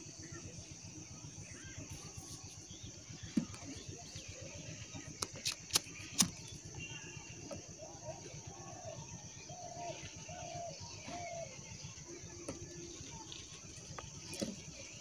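Gas lighter being struck: a quick run of sharp clicks about five to six seconds in, with a lone click before and one near the end. These are heard against a faint steady hiss, as the flame is used to shrink heat-shrink tubing over crimped lug pins on a float-switch wire.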